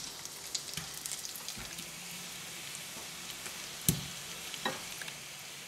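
Melted butter sizzling gently in a frying pan as pre-boiled potato halves are laid in, with scattered small ticks and a sharper knock about four seconds in.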